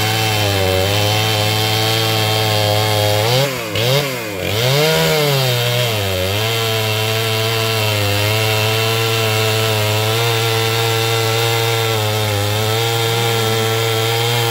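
Two-stroke chainsaw engine running loud and steady. Its revs drop and climb again several times around the middle, and it dips once briefly near the start.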